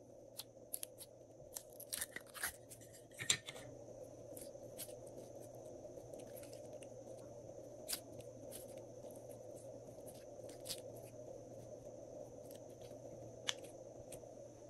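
Hands opening a plastic puzzle-piece container of glossy slime and pulling the slime out, with a cluster of sticky clicks and crackles in the first few seconds, the loudest about three seconds in. After that come only a few scattered clicks as the slime is handled, over a steady low hum.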